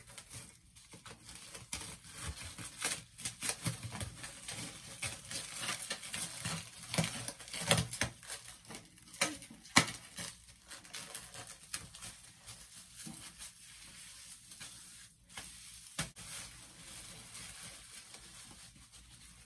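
Plastic cling wrap crinkling and crackling as it is pulled off the roll and smoothed around a head, with irregular small crackles and a few sharper snaps.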